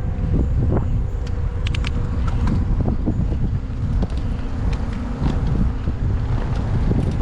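Wind rumbling on the microphone of a camera riding along on a touring bicycle, a steady low buffeting with a few light clicks and rattles between about one and two and a half seconds in.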